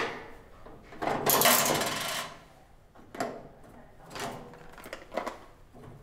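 Token vending machine being worked: a click as the token goes into the slot, then a rattling metal slide about a second in lasting about a second, followed by a few lighter clicks as the pull-out drawer is handled.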